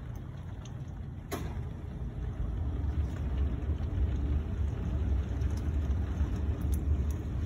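Severe thunderstorm wind and rain heard from inside a classroom: a low, steady rumble that grows louder about two seconds in. A sharp click sounds about a second in.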